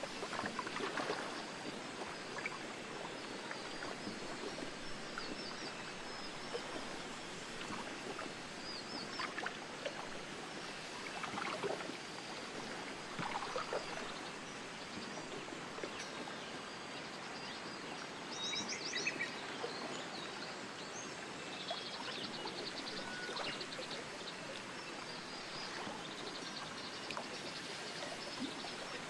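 Steady wind with birds chirping now and then: a few high chirps, a short burst of calls about two-thirds through, then a quick trill.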